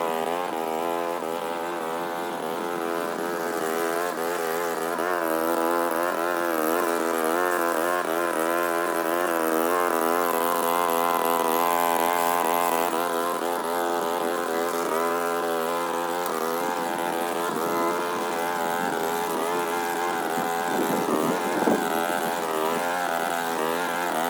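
Gas walk-behind lawn mower engine running while cutting grass, its pitch wavering up and down as the load changes.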